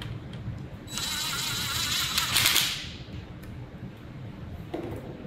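A ratchet wrench clicking rapidly for about two seconds, starting about a second in, as it snugs down the thermostat housing bolts before they are torqued.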